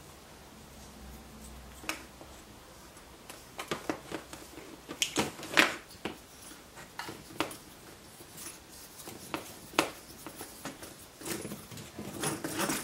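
A hand screwdriver and small wooden parts handled on a workbench while a dowel handle is screwed onto a wooden crank wheel: scattered clicks and knocks, a few sharper ones about five seconds in and a short cluster near the end.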